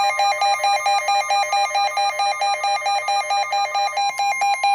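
Emergency alert tone for a tornado warning, warbling rapidly back and forth between two pitches, about six or seven times a second.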